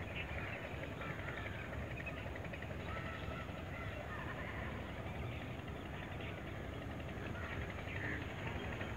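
Steady low rumble with scattered short bird chirps over it.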